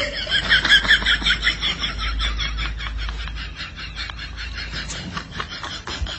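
Rapid run of short, high chirping calls from an animal, about eight a second, strongest at the start and thinning out into faint clicks.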